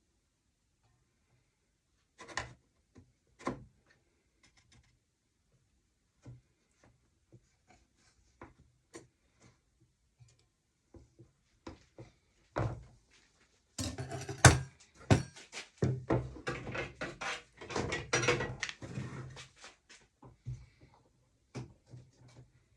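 Scattered knocks, taps and clicks of wooden pieces and hand tools being handled on a workbench, building to a busier clatter about two-thirds of the way through.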